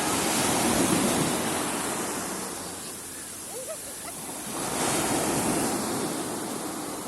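Sea waves breaking on a beach, the surf swelling and washing in twice: once at the start and again about five seconds in, each fading away over a couple of seconds.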